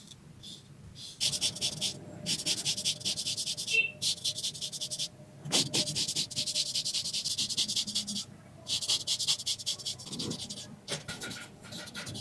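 Straight razor scraping across facial stubble in quick, short, rhythmic strokes, in runs of a second or two with brief pauses between them.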